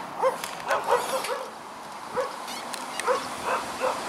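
A dog yapping, about nine short high yaps at uneven intervals with a pause around the middle.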